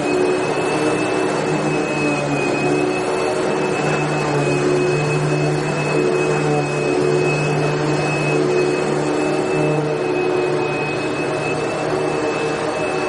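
Vacuum cleaner running steadily: a constant rush of air with a high, even motor whine over a low hum.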